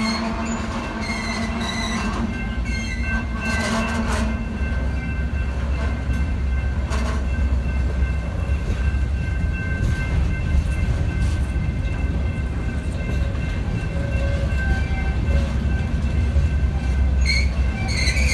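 Freight train of covered hopper cars rolling past, a steady low rumble with high steady wheel squeal.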